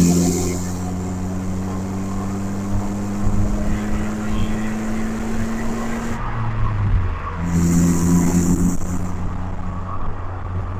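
1991 Honda Accord's four-cylinder engine pulling in gear while driving, its note rising slowly for about six seconds and then dropping back, as at a gear change.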